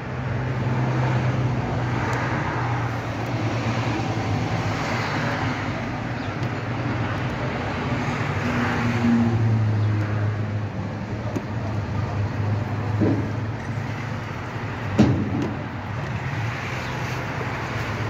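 Steady street traffic with engines running and humming, their pitch drifting. A single sharp knock about fifteen seconds in.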